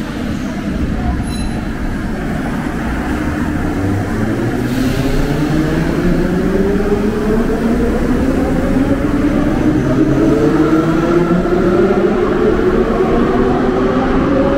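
Moscow Metro train accelerating, with its traction-motor whine, several tones together, rising steadily in pitch over the running rumble as the train gains speed.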